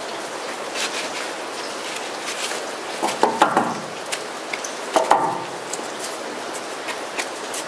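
Flat steel panels of an Onetigris Rocuboid folding camp stove clinking and scraping as they are stacked and slid into a fabric pouch, with two bursts of clatter about three and five seconds in, over a steady background hiss.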